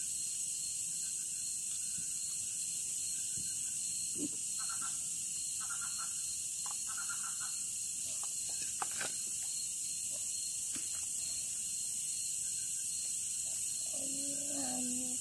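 Night insect chorus of crickets: a steady high-pitched shrill with a thinner, pulsing trill beneath it. A few light clicks, about four seconds in and again near nine seconds.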